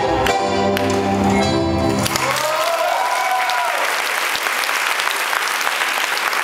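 Tango music ending on a final held chord about two seconds in, then the audience breaks into steady applause. Just after the music stops, a single rising-and-falling whoop from someone in the crowd rises above the clapping.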